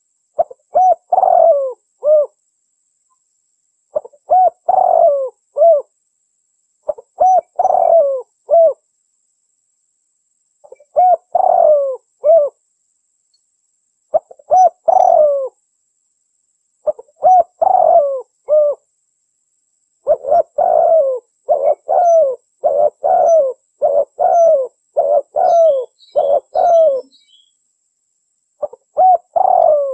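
Spotted dove (tekukur) cooing as a lure-call recording: short phrases of several hoarse coos, the last note set apart, repeated about every three seconds, then running together in a faster string in the second half. Faint high chirps from a small bird join near the end.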